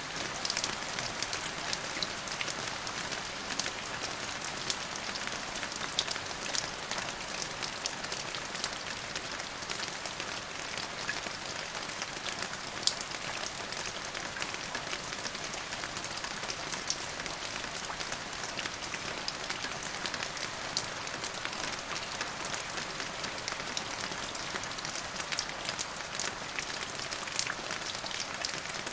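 Steady rain falling on a surface, an even hiss with many distinct drop ticks throughout.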